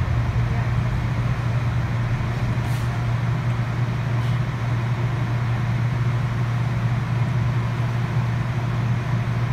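Steady low hum inside a CATS light rail car standing at a station platform, the car's onboard equipment running under a constant hiss.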